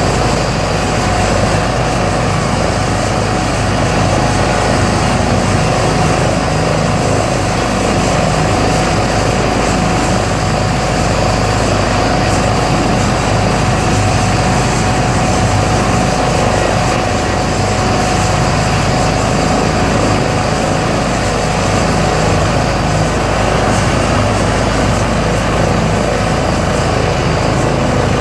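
Airbus H135 P3 trauma helicopter with twin Pratt & Whitney PW206B3 turboshaft engines running steadily on the ground, rotor and turbine noise with a steady high whine.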